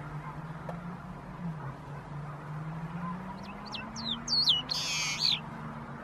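A bird calling: several quick sliding whistles, then one short harsh buzzy note, in the second half. Under it runs a low steady drone that slowly rises and falls in pitch.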